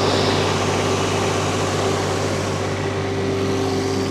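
Vmeng VM1000 mini skid steer engine running steadily while the loader works to lift a heavy pallet load. A steady whine grows stronger about halfway through.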